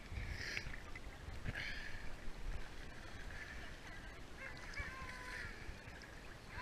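Seawater lapping and sloshing around a camera held at the water's surface, with a low rumble and splashes about once a second. A faint bird call about five seconds in.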